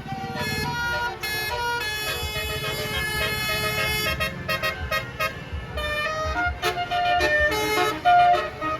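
Tour bus's basuri telolet musical horn playing a melody of stepped, held notes, loudest near the end.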